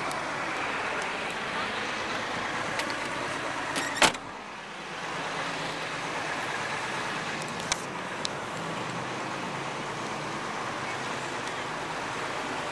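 Steady rushing hiss of hose water spraying over a car's windows and body, broken by one loud thump about four seconds in and two light knocks a few seconds later.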